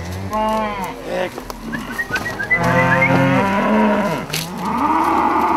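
Cattle mooing, three calls one after another, the last a long drawn-out moo.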